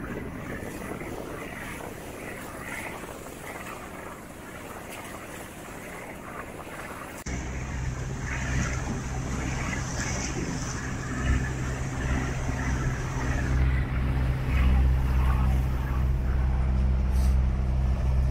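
Steady wind and water noise, then, after an abrupt change about seven seconds in, an engine running steadily with a low droning hum.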